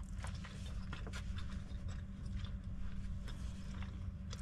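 A fork scraping and tapping against a bowl with small, irregular clicks, along with quiet chewing. A low steady hum runs underneath.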